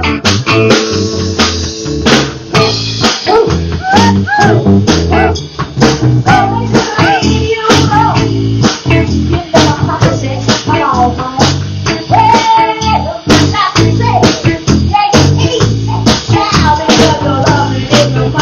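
Live band playing: a woman singing over electric guitar, electric bass and a drum kit keeping a steady beat.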